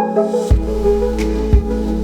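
Lofi instrumental music: mellow sustained chords over a steady bass line, with a soft kick drum landing twice about a second apart.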